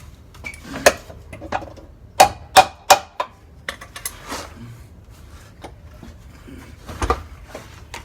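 Hammer blows and clanking metal tools on a car's rear suspension while the control arms are being removed. One sharp strike comes about a second in, three quick strikes follow about two seconds in, and another comes near the end, with lighter clinks and clicks between.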